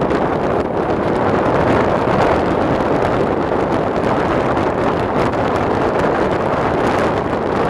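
Steady wind rushing over a microphone held out of an open window of a moving passenger coach, mixed with the train's running noise.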